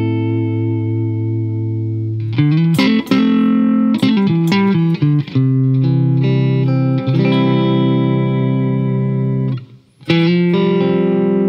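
Electric Stratocaster played through an engaged Fairfield Circuitry Accountant compressor pedal into a tube amp: chords ring with long, even sustain, with a quick run of picked notes between them. The sound drops out briefly near the end before a new chord is struck.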